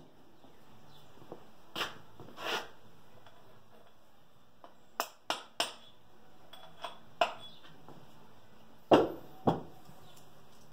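Scattered light metallic clicks and taps from engine parts and hand tools being handled while pistons and cylinders are fitted to an air-cooled VW engine. Three quick clicks come about five seconds in, and two louder knocks come near the end.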